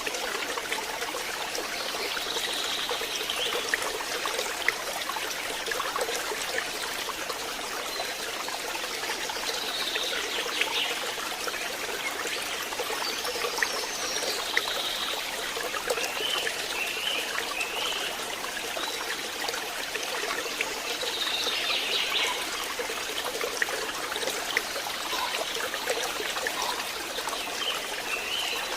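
Stream water running and trickling steadily, with short bird chirps every few seconds over it.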